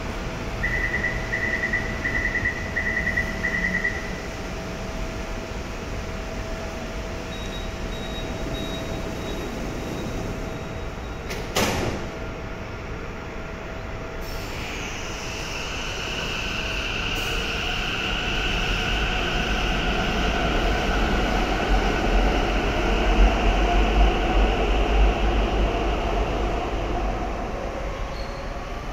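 Taichung MRT Green Line metro train departing a station: a run of door-closing warning beeps in the first few seconds, a single sharp knock about twelve seconds in, then the train's high electric motor whine and low rumble as it pulls away, building to a peak and fading near the end.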